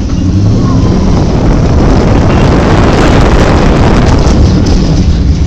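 Loud rushing noise of a Test Track ride vehicle running fast along its track, with wind buffeting the microphone. It swells about half a second in and stays loud as the car brakes and swerves through the cones, in the brake test run without anti-lock brakes.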